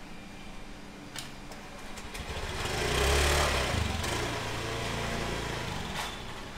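Small motor scooter passing close by in a narrow lane, its engine swelling to loudest about three seconds in and then fading as it rides away.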